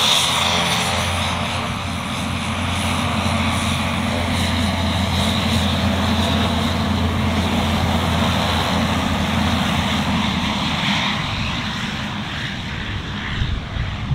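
Cessna Grand Caravan's single turboprop engine and propeller running at taxi power as the plane taxis past, a steady low propeller drone. A high turbine whine is strong at first and fades about a second in as the plane turns side-on.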